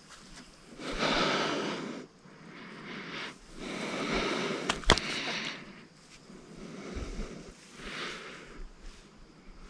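A person breathing close to the microphone: a few long, soft breaths, with two sharp clicks just before five seconds in.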